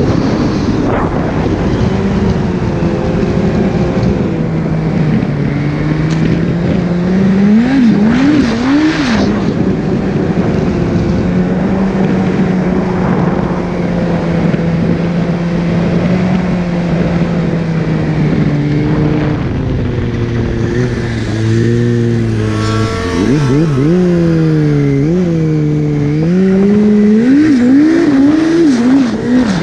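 Yamaha four-stroke snowmobile engine running under throttle, heard from the rider's seat. Its pitch rises and falls with the throttle, with quick revs about eight seconds in and repeated rev-ups in the last several seconds.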